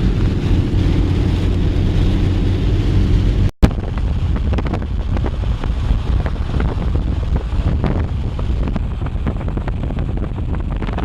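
Road and engine rumble with wind buffeting, heard from inside a moving truck. It cuts out briefly about three and a half seconds in. After that, many small ticks sound over the rumble.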